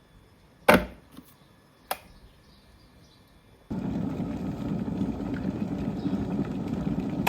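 A hard knock about a second in and a lighter click, then from about halfway a steady low rush of running water starts: an electric kettle being rinsed out.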